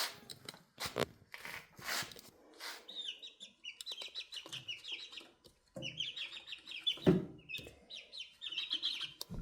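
Five-week-old chicks peeping in several quick runs of short high notes, starting about three seconds in, with sharp clicks and rustling in the first few seconds.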